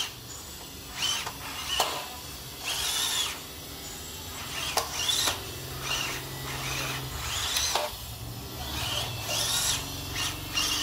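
Small electric motor and gearbox of a WPL B-1 RC military truck whining in short throttle bursts, about seven times, each a rising then falling whine.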